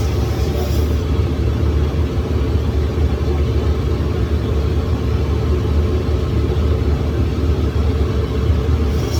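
Shoe-repair sole-grinding machine running steadily with a low, even drone.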